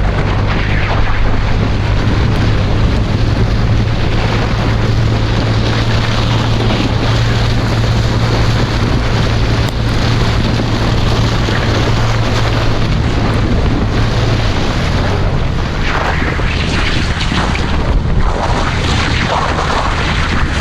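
Toyota FJ Cruiser's 4.0 L V6 running steadily, heard from inside the cabin while driving on tyres fitted with chains, under a constant rush of road and wind noise. The engine hum shifts lower about fifteen seconds in.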